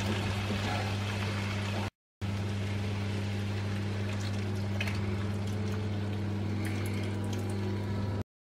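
Ground beef and bean mixture cooking in a frying pan, a soft hiss of sizzling over a steady low hum. The sound cuts out briefly about two seconds in and again just before the end.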